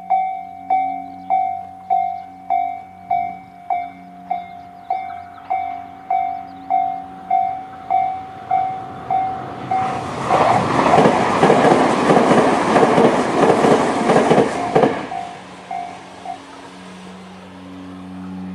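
Electronic level-crossing bell of the slow-tempo Tobu type C ringing steadily, a little under two strikes a second. About ten seconds in, a Tobu N100 series train passes for about five seconds, its running noise and wheel clatter drowning the bell. The bell stops shortly after the train has gone.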